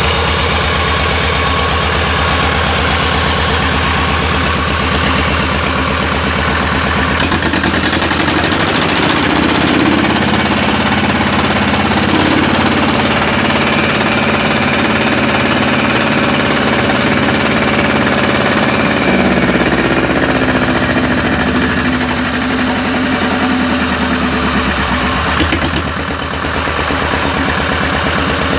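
Deutz diesel engine of a homemade tractor running on test, driving its V-belt pulley drive. The engine speed goes up about a quarter of the way in, holds, then drops back to idle a little past the middle.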